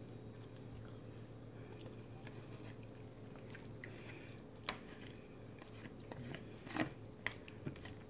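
Quiet chewing of a mouthful of lasagna, with a few short sharp clicks of a metal fork against the aluminium foil tray, mostly in the second half, over a low steady hum.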